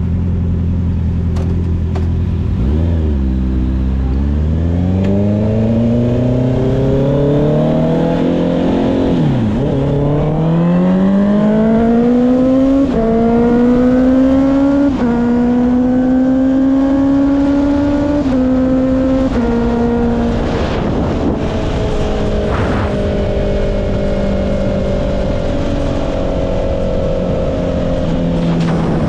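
Honda CB650R's inline-four, through an aftermarket Akrapovic exhaust, pulling hard from low revs with a rising note and upshifting about five times. Each shift is a brief dip in pitch from the quickshifter. The engine then holds a steady cruise and eases off near the end.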